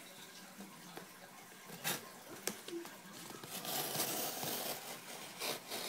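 Folding knife blade slicing along the taped seam of a cardboard mailing box: faint scraping with a few light clicks, growing into a louder scratchy cut about three and a half seconds in.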